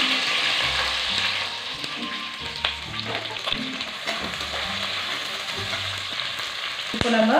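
Sliced onions sizzling in hot oil with cumin seeds and dried red chillies in an aluminium pressure cooker, loudest as the onions go in and easing slightly after. A perforated metal ladle stirs them, with a few clicks against the pot.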